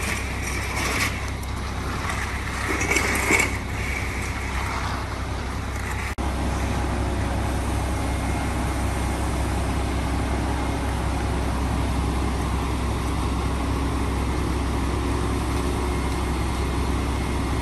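A heavy vehicle's engine running steadily on a construction site, with louder scraping-like noise in the first few seconds; the sound cuts and resumes about six seconds in.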